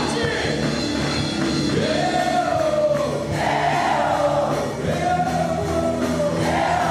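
Christian worship song: voices singing a melody together over a steady band accompaniment.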